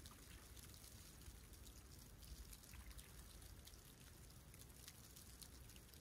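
Faint, gentle lapping and trickling of calm seawater at a snowy shoreline, with many small ticks over a low, steady rumble.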